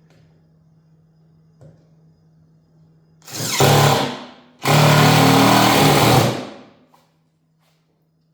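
Power tool run in two bursts, about a second and then about two seconds, the second dying away at the end.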